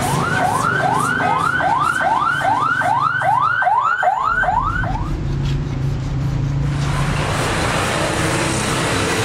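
Electronic siren sounding a fast rising yelp, about two and a half sweeps a second, which stops about five seconds in. After it comes a steady low hum, then a wash of noise like passing traffic.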